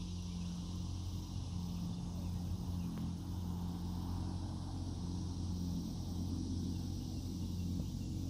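A steady low motor hum runs throughout, with a faint high hiss above it.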